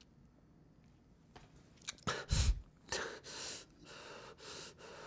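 A man's sudden loud gasping breath about two seconds in, then ragged, distressed heavy breathing, about two breaths a second.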